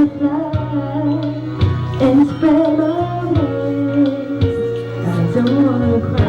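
Background music: a pop song with a singer over a steady bass line and beat.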